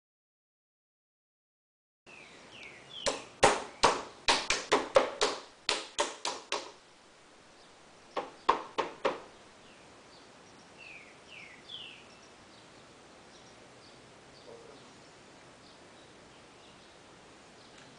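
Hands slapping the surface of a cornstarch-and-water mixture (a non-Newtonian fluid) in a basin: after about two seconds of silence, a quick run of about a dozen sharp slaps, then three more a couple of seconds later. Small birds chirp faintly now and then.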